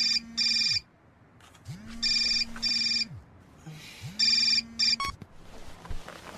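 Telephone ringing: three double rings about two seconds apart, each pair of short high-pitched trills over a low tone that swells and dies away.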